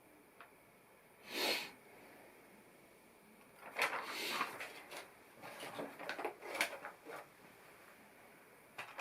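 Small plastic LEGO pieces clicking and rattling as they are handled, after a short rustle about a second and a half in.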